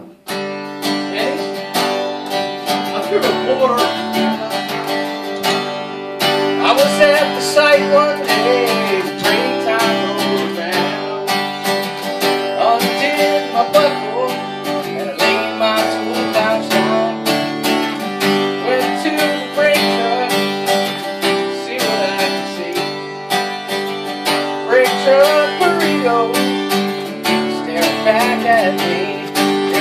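Acoustic guitar strummed in a steady rhythm, the chords changing every second or two, with a voice singing along at times.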